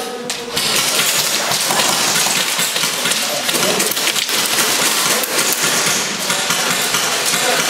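Airsoft gunfire with BBs pattering against walls and props: a dense, continuous clatter of rapid sharp clicks and small impacts.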